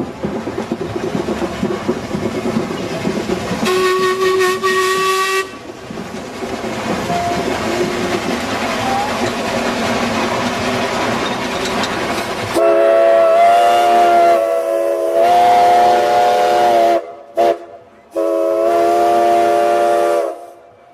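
Steam whistles over a steady mechanical rumble. There is a short single-note blast about four seconds in, then a louder whistle sounding several notes at once, blown in long blasts from about twelve seconds in. It breaks off briefly near the end and then sounds again.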